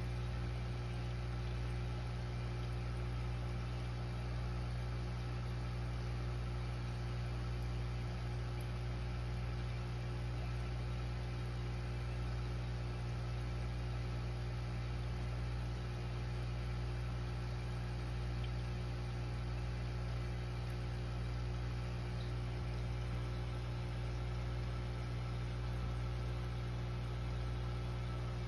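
Aquarium pump humming steadily: a low, even hum with a light hiss over it.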